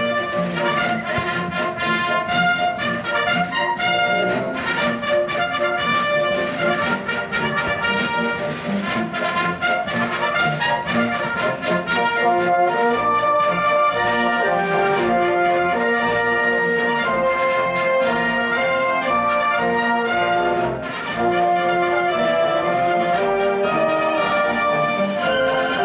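Live military brass music with drums. Sharp drum strokes drive the brass through the first half, then the brass moves into long held chords, with a brief drop in level a little past the middle.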